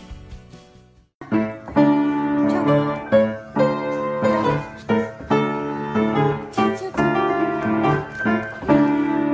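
A piano being played, a run of melody notes over chords, starting about a second in after other music fades out.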